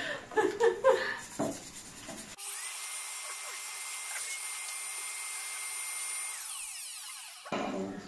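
Vacuum cleaner switched on about two seconds in and running steadily with a high whine as its nozzle sucks dust out of a robot vacuum's plastic dust bin. It is then switched off and its motor winds down near the end.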